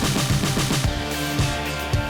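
Background music with a steady drum beat and a drum fill near the start.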